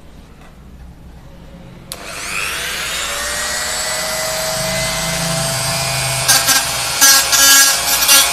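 An INGCO 130 W mini grinder (rotary tool) switches on about two seconds in, spins up with a rising whine and runs steadily at medium speed. Near the end its sandpaper drum is pressed onto a rusty putty-knife blade, adding a rough, uneven grinding rasp as the rust is sanded off.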